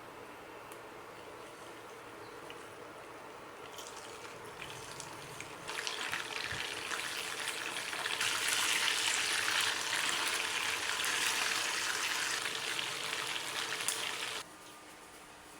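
Water running from a kitchen tap, turned up in steps and then shut off suddenly about a second before the end.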